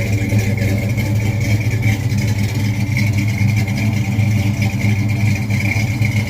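A vehicle engine running steadily and loudly, with a low hum and a thin steady whine above it.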